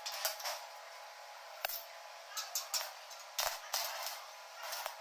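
Stick arc welding on a steel frame: the electrode strikes and crackles in several short bursts as tack welds are laid, the strongest about three and a half seconds in.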